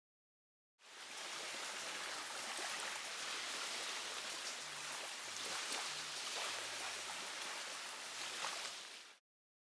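Steady rushing water with small splashes and ticks, starting about a second in and fading out just before the end.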